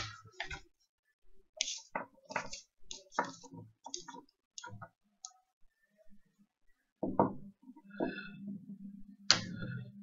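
Light clicks and taps of small toy figurines and a marker being handled and set down on a paper-covered tabletop, an irregular run of them for a few seconds, then a few heavier knocks. A low steady hum comes in near the end.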